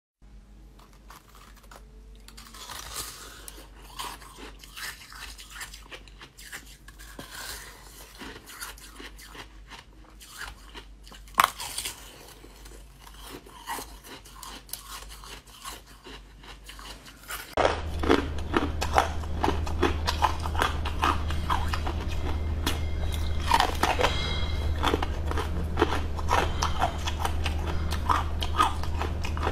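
A person biting and chewing firm jelly sweets, with many sharp little crunches and one loud snap about eleven seconds in. About two thirds of the way through it becomes louder and busier, over a steady low hum.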